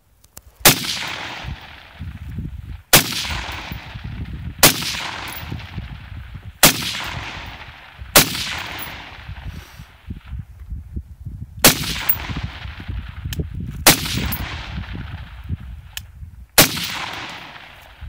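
AR-15 rifle firing eight single shots at a slow, uneven pace, one every one and a half to three seconds, each crack followed by a fading echo.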